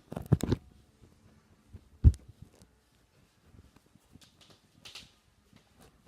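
A quick run of knocks, then one heavy thump about two seconds in, followed by faint rustling and light clicks.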